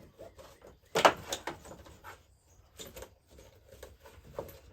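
Clicks, knocks and rustling as a jump starter's carry case and its accessories are handled, with one sharp clack about a second in.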